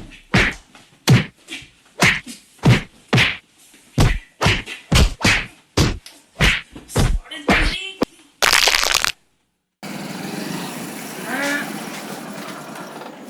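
A rapid series of thuds and whacks, about two a second, with short voice-like sounds near the end of the run. Then a loud burst of noise, a moment of dead silence, and a steady low hiss.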